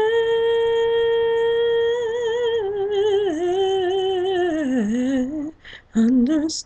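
A woman singing unaccompanied. She holds one long steady note for about two seconds, then moves into wavering runs that slide downward, pauses briefly for a breath, and starts a new phrase near the end.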